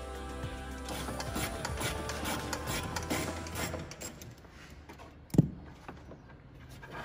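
Hands handling wiring and trim at the edge of an open car trunk: rubbing and small clicks, with one sharp knock about five seconds in. Background music plays over the first few seconds.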